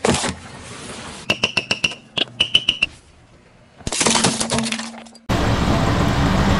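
A car tyre rolling over objects on asphalt and crushing them, in several short cuts: a sharp crack, then a quick run of cracks and snaps with a brief high squeak, a crunching crackle about four seconds in, and steady tyre and road noise near the end.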